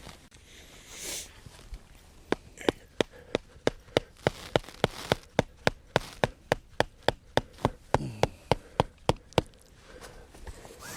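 Tent stake being hammered into firm ground: a steady run of about twenty sharp metal-on-metal strikes, about three a second, starting about two seconds in and stopping near the end.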